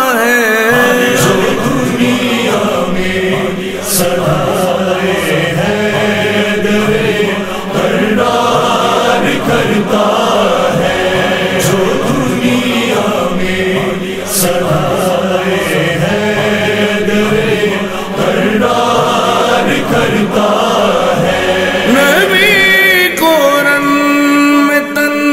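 Manqabat (Shia devotional song) vocals: a male chorus chanting, with a solo male voice rising clearly above it near the end.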